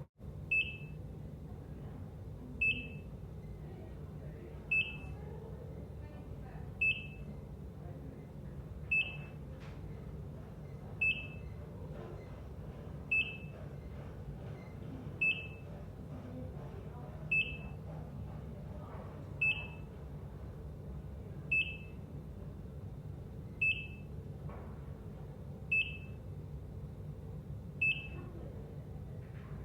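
ECG heart monitor beeping its pulse tone: a short high beep about every two seconds in a slow, perfectly steady rhythm, over a low steady hum.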